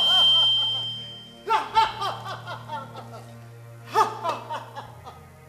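Loud laughter in runs of short 'ha's that fade away, one about a second and a half in and another near four seconds, over background music with a low steady drone.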